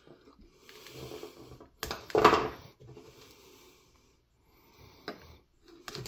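Small wire strippers clicking and snipping as the end of a thin insulated wire is stripped, with a short breathy rush about two seconds in as the loudest sound.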